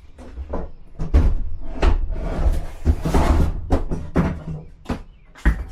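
A cooler knocking and scraping as it is shoved and turned to fit a tight space: a string of sharp knocks with a longer scrape in the middle.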